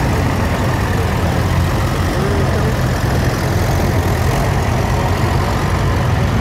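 Engines of a line of classic farm tractors running steadily as they drive slowly past one after another.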